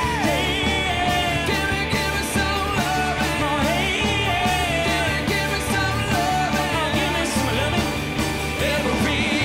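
Male voice belting a rock song high, with wavering held notes that bend in pitch, over a steady instrumental backing.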